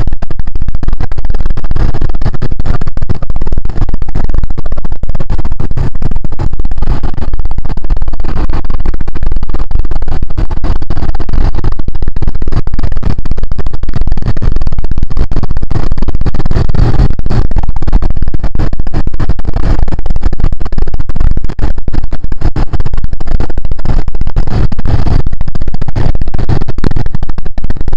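Quad bike riding over desert sand: wind buffeting and rattling on the camera microphone, overloaded and crackling, over the engine running.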